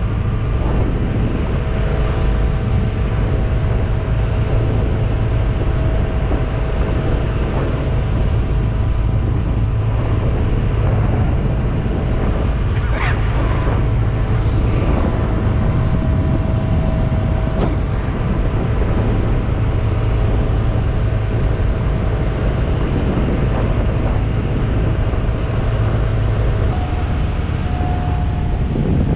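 1989 Mercruiser 350 carburetted V8 sterndrive running steadily under load in a 23-foot Scarab at about 26 knots, a loud, even drone. Near the end the engine note shifts as the boat runs slower, at about 15 knots.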